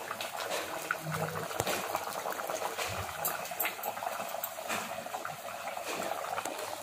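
Fish curry in tamarind broth boiling in an aluminium pot, a steady bubbling with many small pops.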